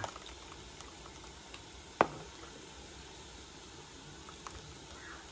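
Thick peanut dipping sauce simmering in a wide pan, a faint steady bubbling. A metal ladle gives one sharp clink against the pan about two seconds in.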